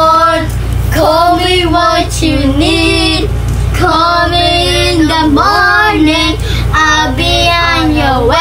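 A child singing a song: held notes that bend in pitch, in short phrases of about a second each with brief breaks between, over a steady low hum.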